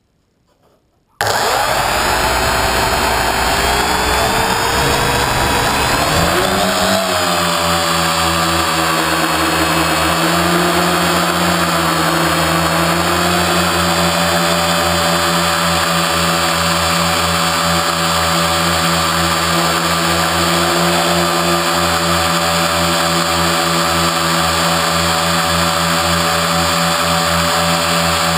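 Quadcopter's electric motors and propellers spinning up about a second in, rising in pitch for several seconds as it lifts off, then settling into a steady whirring hum of several tones as it hovers.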